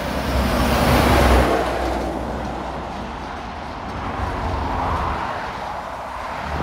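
A heavy truck drives past close by on the highway, loudest about a second in and falling away. A car passes around five seconds in. The container wagons crossing the rail overpass above add a low rumble underneath.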